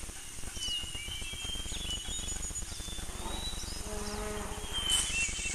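Nature-ambience sound effect of insects buzzing steadily, with scattered short high chirps. A short, low animal call comes in about four seconds in.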